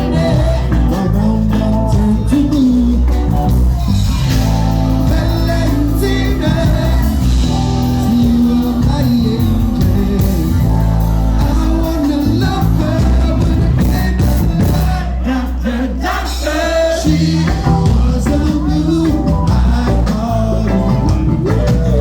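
A band playing a song with singing over a heavy, steady bass line.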